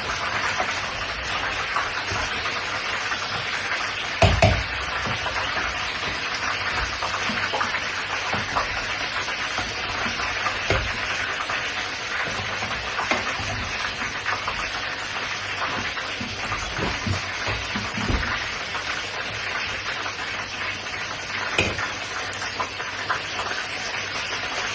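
Food frying in hot oil in a pan, a steady dense sizzle and crackle, with a couple of low knocks about four seconds in and again near eighteen seconds.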